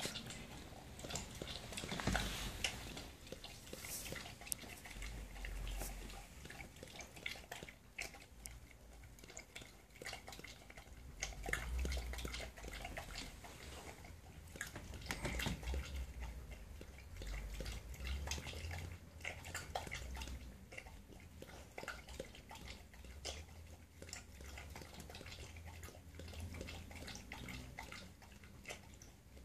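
A dog lapping water from a stainless steel pot, a long run of wet lapping splashes and drips.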